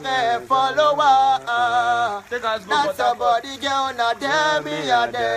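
Music: a man sings a chanting melody with gliding and held notes over a backing track with a steady, stepping bass line.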